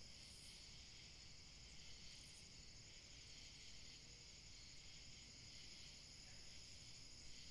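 Near silence: a faint, steady high-pitched hiss of room or night ambience.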